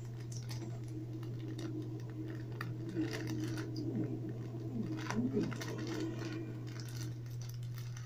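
Light clicks and rustles of a small object being handled in the hands, over a steady low hum.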